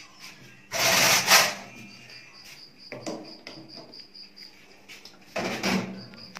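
A cake tin is handled and slid onto the rack of a countertop electric oven: a loud rustling scrape about a second in, a lighter one around three seconds, and a clatter near the end. Behind it a cricket chirps steadily, about three pulses a second.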